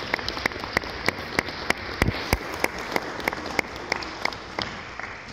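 Audience applauding, with one pair of hands clapping close to the microphone in steady strokes about three times a second. The applause dies away near the end.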